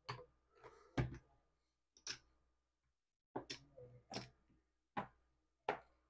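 Faint, sharp clicks of casino chips being picked up and set down on a craps table layout, about seven in all at roughly one a second, as losing bets are taken off and place bets are laid.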